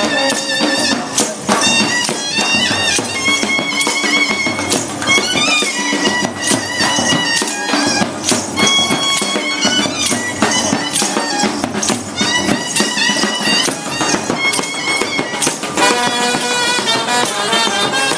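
A live street band playing traditional music: wind instruments carry a wavering, ornamented melody over steady, dense percussion strikes.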